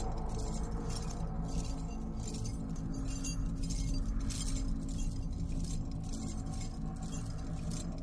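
Metal shackle chains clinking in a steady rhythm, about two clinks a second, with the slow steps of a chained man walking, over a steady low drone.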